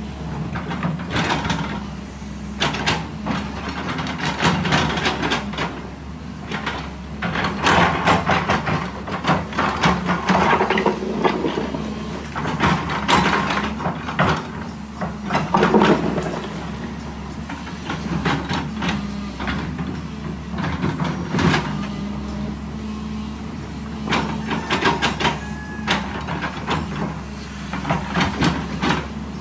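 JCB tracked excavator's diesel engine running steadily under load, with repeated irregular clanks, scrapes and rattles as the bucket digs and drags soil and stones.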